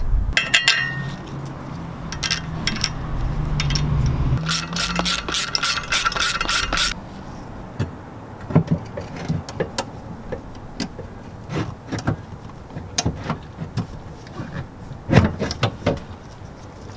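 Tools and metal parts clinking and knocking as a transmission mount with rubber bushings is fitted up under the car. About four and a half seconds in, a loud mechanical buzz runs for about two and a half seconds, then only scattered sharp clicks and knocks follow.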